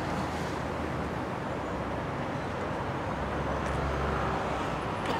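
Steady background noise: a low rumble with an even hiss over it, without distinct events.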